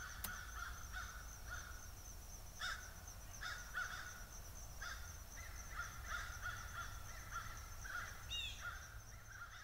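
Birds calling repeatedly in short notes, one call near the end sliding down in pitch, over a faint steady low hum.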